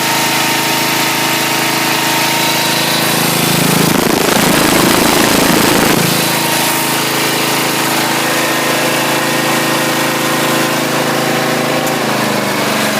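Lawn mower's 8-horsepower Briggs & Stratton engine running steadily in freezing cold, shortly after a cold start. About four seconds in it is throttled up and runs louder and rougher for some two seconds, then settles back to its steady run.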